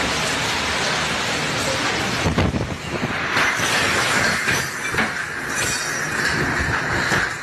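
EF-4 tornado's wind rushing past a building, a dense steady noise, with a series of knocks and bangs from about two seconds in as things are struck, and a higher hiss joining from about three seconds in.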